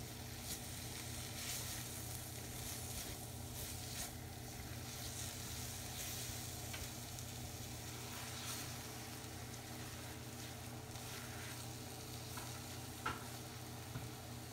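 Grated-carrot and milk-powder barfi mixture sizzling in a wok while a silicone spatula stirs and scrapes it, with frequent small scrapes and taps against the pan and a sharper knock near the end. This is the roasting stage, frying the mixture until it dries. A steady low hum runs underneath.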